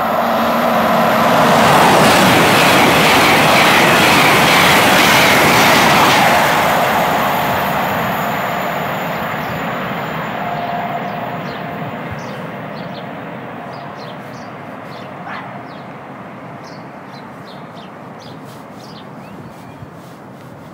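A Great Western Railway Intercity Express Train running through the station without stopping: a rushing rumble that is loudest about two to six seconds in, then slowly fades as the train draws away.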